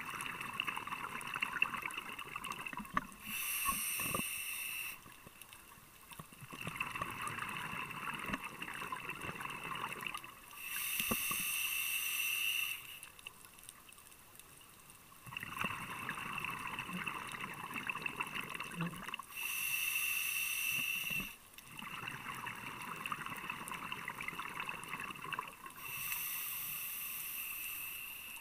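Scuba diver breathing through a regulator underwater: four hissing inhales through the demand valve, each about two seconds long, alternating with longer stretches of bubbling exhaust from the exhaled air.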